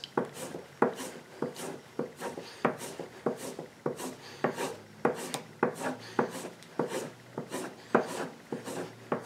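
Steel plane iron drawn repeatedly along a leather strop charged with green honing compound, a quick run of short rubbing strokes at about two or three a second. This is the final polishing stage of sharpening, taking off the wire edge.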